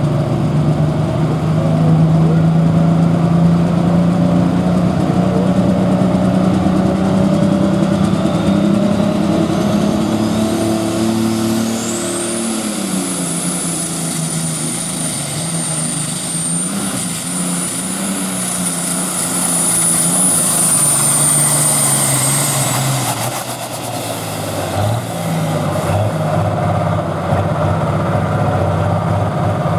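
Allis-Chalmers D21 pulling tractor's diesel engine running hard as it pulls the sled. The engine note drops and changes about 12 seconds in, and a high whistle comes in then and holds for about ten seconds.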